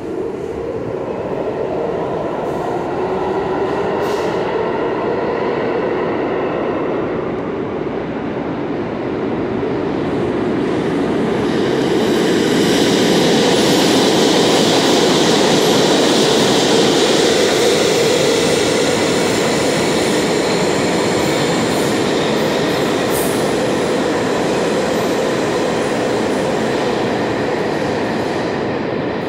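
New York City Subway train running past on the express track at speed: a continuous loud rumble of wheels on rail with a steady motor hum. It grows louder and brighter, with a high hiss from the wheels, about halfway through, then eases slightly toward the end.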